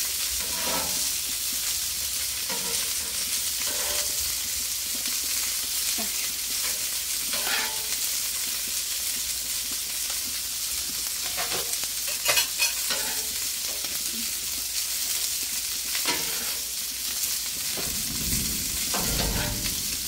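Burgers and buns sizzling on a Blackstone flat-top griddle, with a metal spatula scraping and tapping on the steel cooktop now and then. Near the end a low rumble of thunder.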